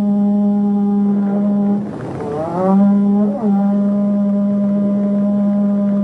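Horagai conch-shell trumpet blown in one long, steady low note. About two seconds in the note breaks into a short upward-sweeping swoop, then settles back on the held note.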